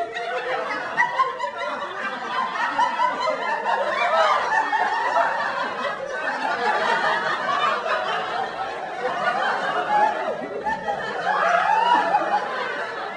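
Laugh track of a studio audience: many people chuckling and laughing together, swelling and easing off in waves.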